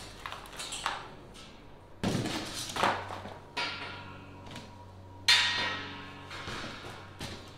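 A handful of separate knocks and clanks as kennel parts are handled. The loudest comes about five seconds in and rings briefly.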